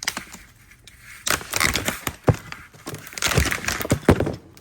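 Rustling and crinkling of packaging while CB antenna parts are unpacked and handled, with several sharp clicks over about three seconds.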